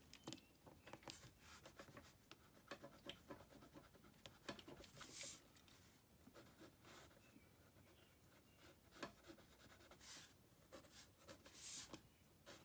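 Pen scratching on paper in short, irregular sketching strokes, faint, with longer strokes about five seconds in and again near the end.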